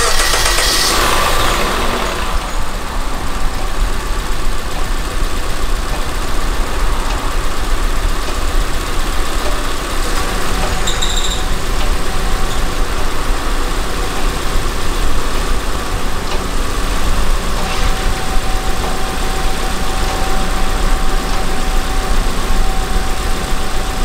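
Renault Samsung New SM5's DOHC 16-valve four-cylinder engine starting and settling into a steady idle with the air conditioning on, a faint steady whine joining about three-quarters of the way in. The noise with the AC running persists after the compressor was replaced; the mechanic traces it to a failing crankshaft damper pulley.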